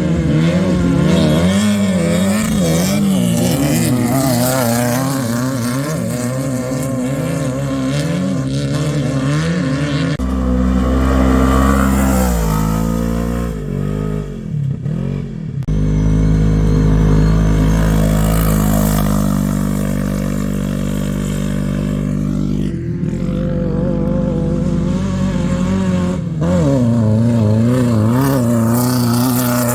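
Off-road race vehicle engines revving hard, the pitch wavering up and down with the throttle. There is a falling engine note about fourteen seconds in, and the engine sound changes abruptly a few times.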